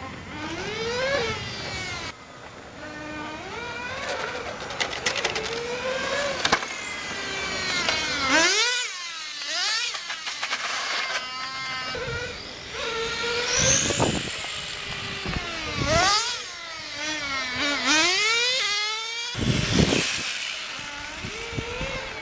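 Several 1/10-scale electric RC on-road cars with brushless motors whining as they lap, the pitch rising on each acceleration and falling off under braking, over and over as the cars pass and overlap.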